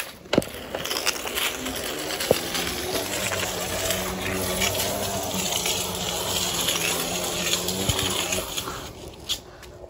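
Scooter rolling fast over rough asphalt: a steady rush of wheel and wind noise, with a low steady hum underneath for most of it and a few sharp knocks.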